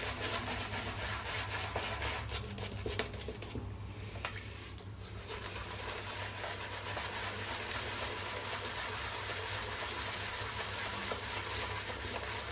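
Shaving brush worked briskly over wet lather on the face, building a face lather from shaving soap: a steady wet hiss with fine crackle, briefly thinner about four seconds in.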